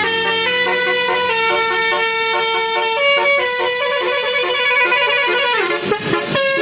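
Bus telolet horn, a set of tuned air-horn trumpets, playing a melody in held notes that step from pitch to pitch, with a swooping fall and rise in pitch near the end.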